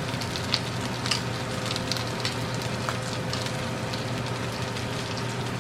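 Asparagus and sausage sizzling in oil in a frying pan: a steady hiss with scattered small pops and crackles.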